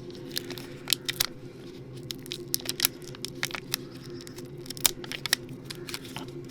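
Sticky rubber tyre plug strip being peeled from its packaging and handled: irregular crackling, tearing and crinkling clicks, over a steady low hum.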